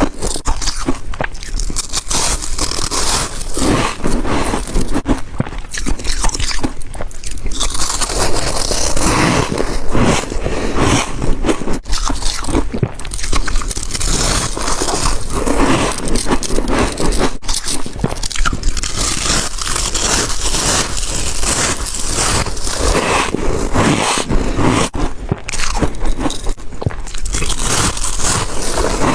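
Ice being bitten and chewed: dense, continuous crunching without a break.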